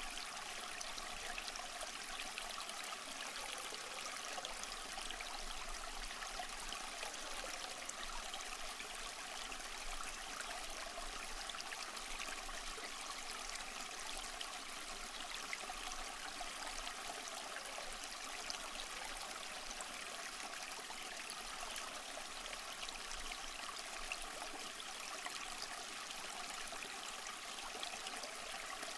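Steady rain falling: an even hiss of rain, dotted with the small ticks of single drops.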